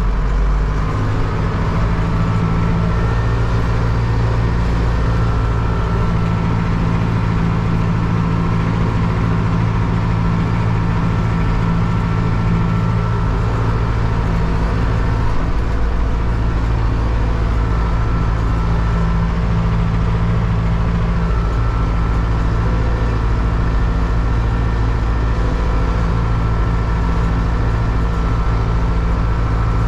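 Zetor 7341 Super Turbo tractor's four-cylinder turbodiesel engine running steadily at constant speed, with a thin whine above it that comes and goes.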